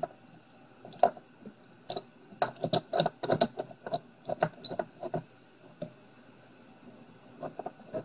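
Metallic clicks and rattles of a steel clamp being handled and tightened, with a quick run of clicks in the middle and a few single clicks after.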